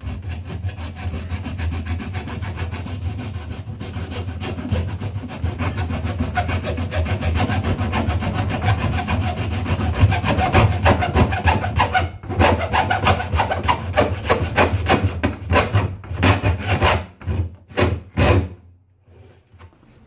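Hacksaw sawing into the top edge of a chest freezer's plastic trim and sheet-metal wall with quick back-and-forth strokes, the blade running against a wooden guide block. The strokes grow louder about halfway through, turn choppy, and stop a little before the end.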